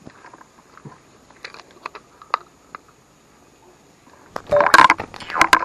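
Faint scattered ticks and rustles, then about four seconds in a sudden run of loud, close crackling and scraping right against the microphone: handling noise as the camera is jostled.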